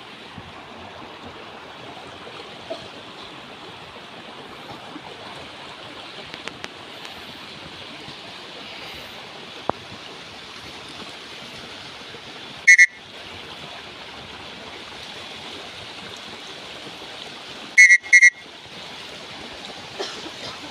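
Steady rushing background noise, like wind or running water, broken by three short, loud, shrill whistle-like calls: one about halfway through and two in quick succession near the end.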